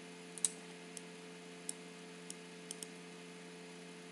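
Computer mouse clicking as on-screen sliders are adjusted: about seven sharp, unevenly spaced clicks, the loudest about half a second in, over a faint steady electrical hum.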